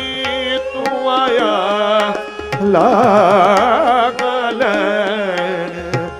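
Sikh shabad kirtan: a devotional melody sung with tabla and sustained accompanying notes. The melodic line wavers with strong vibrato in the middle.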